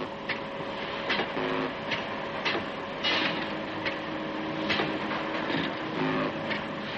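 Bench machinery running with a steady hum, irregular sharp clicks and short steady tones that come and go every second or two.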